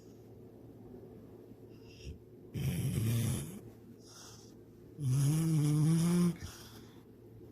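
A sleeping dog snoring: two loud snores a little over two seconds apart, the second longer, with a steady buzzing pitch. Fainter breaths come between them.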